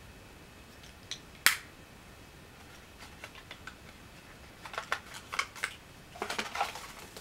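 A small plastic eyeshadow compact snapping shut with one sharp click about a second and a half in, after a lighter click. Then a run of light clicks and rustles as small cosmetic items and paper packaging are handled.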